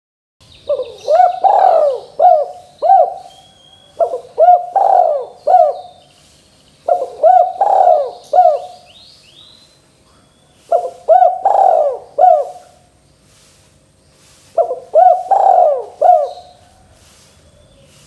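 A spotted dove cooing: five phrases of three or four short, throaty notes each, repeated about every three to four seconds.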